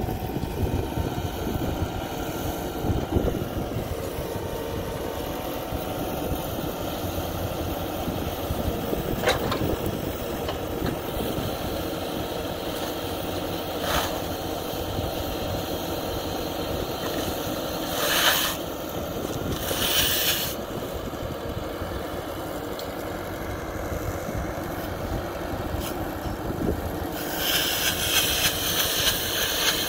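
Tractor engine running steadily with a trailed bale wrapper working behind it, loading a net-wrapped round bale of grass onto the wrapping table. A few knocks, two short hisses a little past halfway, and a longer hiss near the end.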